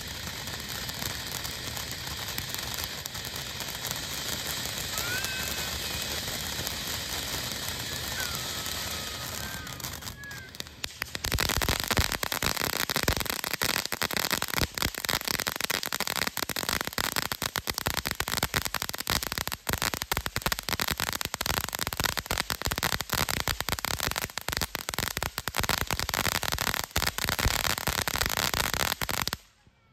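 A steady hiss for about the first eleven seconds, then a dense, rapid string of firecracker pops and crackles that runs for about eighteen seconds and cuts off abruptly.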